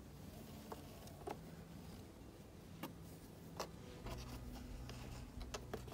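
Faint handling sounds of 3 mm macrame cord being pulled and knotted into double half hitches on a cork board: a few scattered soft clicks and light rubbing, over a low steady hum.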